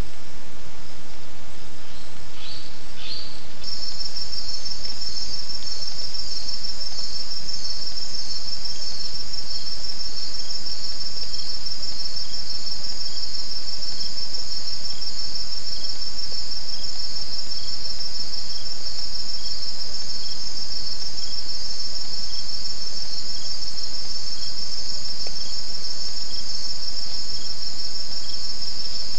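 Forest night insects calling in a continuous, high-pitched trill that starts about four seconds in, over a steady hiss. Before it, two short falling chirps.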